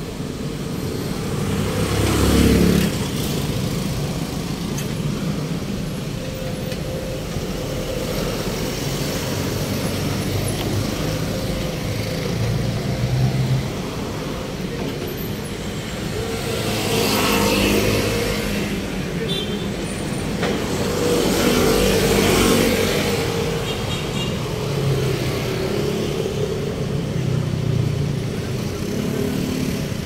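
Road traffic: vehicle engines running and tyres on the road, with louder vehicles passing about two, seventeen and twenty-two seconds in.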